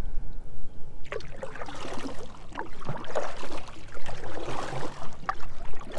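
Water splashing and trickling around a canoe's hull on a river, in uneven bursts.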